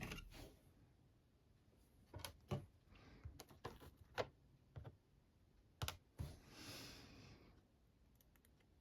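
Faint, scattered metal clicks and taps of a manipulation tool being worked in a seven-lever safe lock, with a short rustle of handling about two thirds of the way through.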